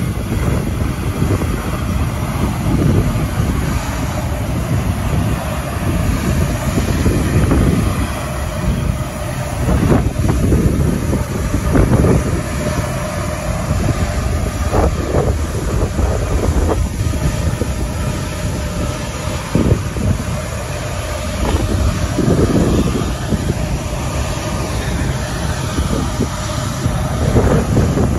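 Boeing C-17 Globemaster III's four turbofan engines running on the ground: a steady, loud jet rumble with a faint whine, mixed with wind buffeting the microphone.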